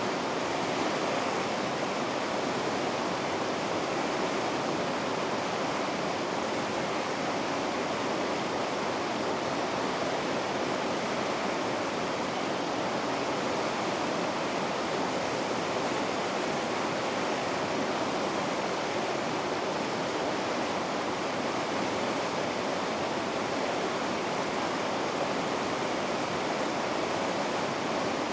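Rapids rushing: a steady, unbroken roar of fast water, full and even without breaks or single splashes.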